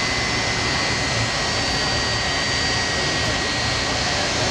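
Boeing 757-200's twin jet engines running steadily after start-up: an even rushing noise with a high, steady whine.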